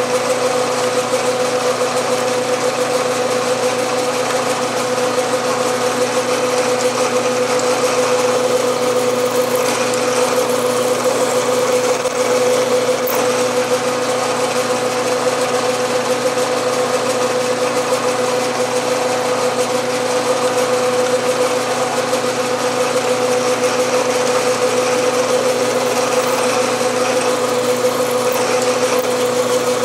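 Bridgeport milling machine with a J head, its spindle motor running with a steady hum while a starter drill spots holes in a metal part.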